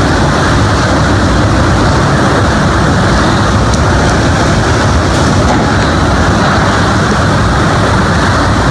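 Super typhoon wind and wind-driven rain, a loud steady roar.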